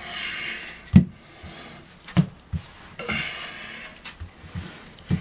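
Wooden rolling pin rolling out dough on a floured wooden board, knocking against the board a few times, the loudest knock about a second in. Between the strokes come loud breaths.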